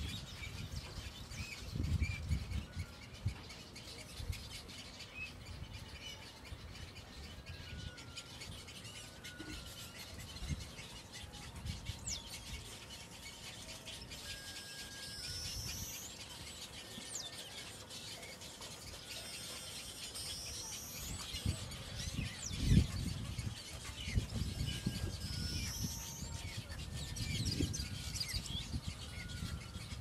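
Nesting colony of weaver birds calling: a steady chatter of short chirps and whistles, with a few rising squeals. Low rumbles come and go beneath it, the loudest a thump about three quarters of the way through.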